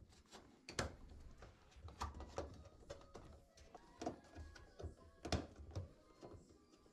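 Irregular light clicks, taps and knocks of hands and pliers working the metal retaining ring of a washer's rubber door seal back into place, the two sharpest knocks under a second in and near the end.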